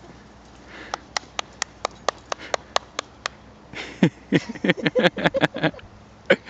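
A run of light, evenly spaced clicks, about four to five a second, for a couple of seconds, then a person laughing in quick, falling bursts from about four seconds in.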